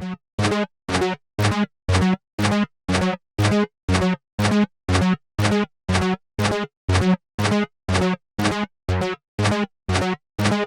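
Japanese level-crossing alarm ringing its "kan-kan" warning: identical electronic dings repeating evenly about twice a second, each cut off sharply before the next.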